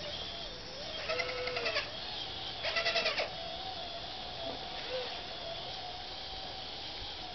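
Radio-controlled model Cat D6 bulldozer crawling over loose soil, its drive giving a steady, slightly wavering whine. Twice, about a second and about three seconds in, a short pulsing bleat-like call rises over it; these calls are the loudest sounds.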